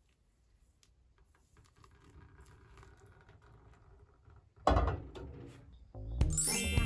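Quiet room tone, then a sudden loud hit about four and a half seconds in that fades over a second. Background music starts near the end, opening with a rising sweep.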